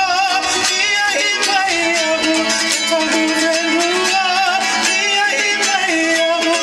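Live Tahitian aparima music: a voice singing over strummed string instruments, steady throughout.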